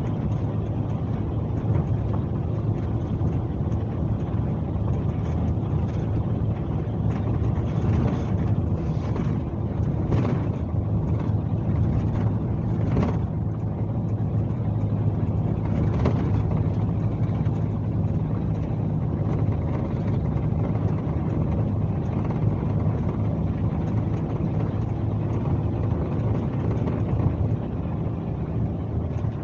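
Scania K370C coach diesel engine running steadily under way, a low drone, with a few brief knocks or rattles between about 8 and 16 seconds in.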